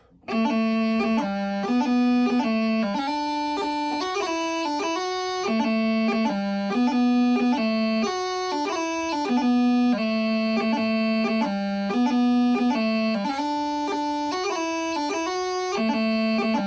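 Bagpipe chanter playing a reel-like tune in quick, evenly paced notes with crisp grace-note groups (doublings, throws, and G and D grace notes on low A and low G), no drones held under the melody.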